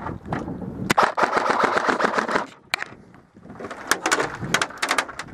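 Airsoft gun fired on full auto in a rapid burst of about a second and a half, followed by a single shot and then a string of quicker separate shots near the end.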